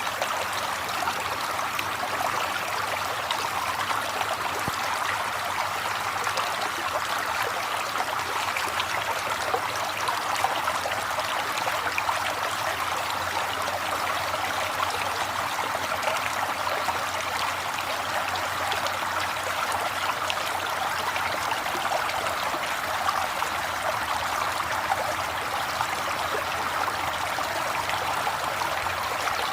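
River water flowing steadily, a constant rushing and trickling.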